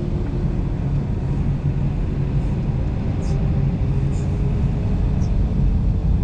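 Airliner cabin noise while taxiing: a steady low rumble of the jet engines at low power and the rolling wheels, with a faint steady engine hum.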